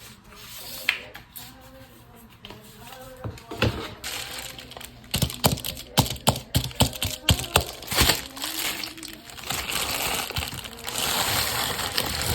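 iPad box and packaging being handled: a run of sharp clicks and taps from about four to eight seconds in, then several seconds of rustling noise, over faint background music.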